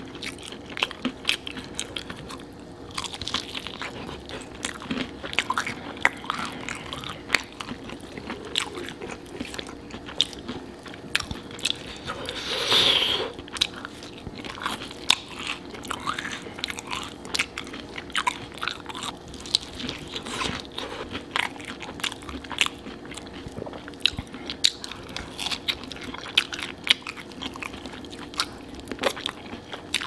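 Close-miked eating of breaded, sauce-coated fried chicken drumsticks: crunchy bites and wet chewing, with many small clicks and smacks. One brief, louder, noisier sound comes about halfway through.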